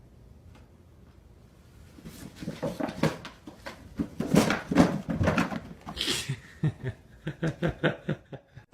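A pet animal making a run of short calls, quickening near the end into rapid, even pulses, with a brief hissing noise about six seconds in.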